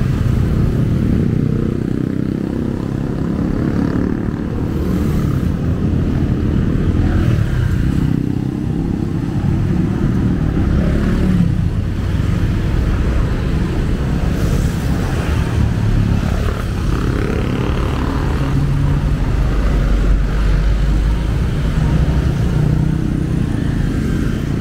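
Street traffic with motorcycles and cars passing, a loud, steady low rumble.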